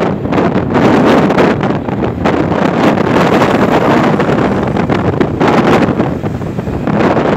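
Wind buffeting the phone's microphone in a loud, uneven rush, over the noise of road traffic.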